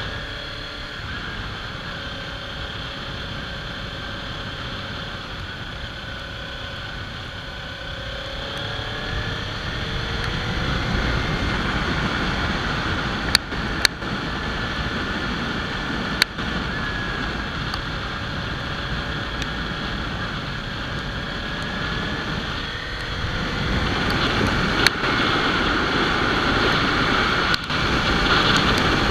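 Kawasaki Ninja 300's parallel-twin engine running under way, buried in wind noise on the microphone and hiss from the wet road. The engine climbs in pitch and gets louder about ten seconds in and again near the end. A few sharp clicks.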